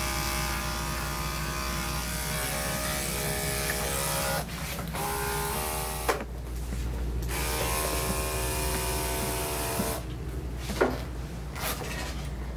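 Corded electric pet grooming clippers running with a steady buzz as they trim around a puppy's face, the sound shifting briefly now and then as the blade meets the hair. The buzz gets quieter about ten seconds in.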